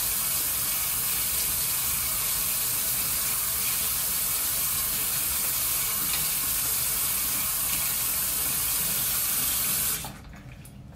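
Bathroom sink tap running steadily into the basin, shut off about ten seconds in.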